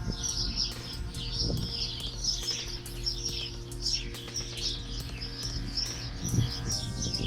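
Many small birds chirping and twittering continuously in a dense, overlapping chorus, with a couple of brief low thumps, one about six seconds in.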